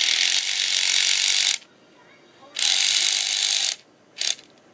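A small drill running in short bursts: on for the first second and a half, off, on again for about a second, then a brief blip near the end.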